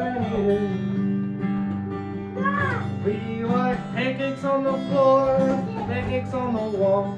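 Acoustic guitar strummed steadily through a simple song, with a voice singing held, rising and falling notes over it.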